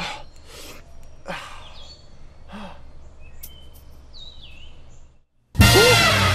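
A man gasping and sighing in several heavy breaths after gulping down a drink, with small birds chirping. About five seconds in the sound cuts out for a moment, and then loud music with bending, gliding tones comes in suddenly.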